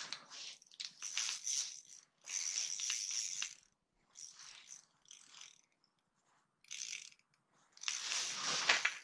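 Spinning reel being cranked in several short spurts with pauses between, a ratcheting mechanical whir, with a fish on the line.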